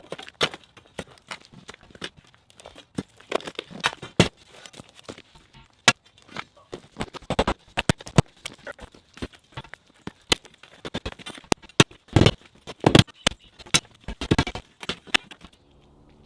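Old concrete being broken out by hand with a sledgehammer and spud bar: a dense, irregular run of sharp knocks and crunches as the slab cracks and chunks shift.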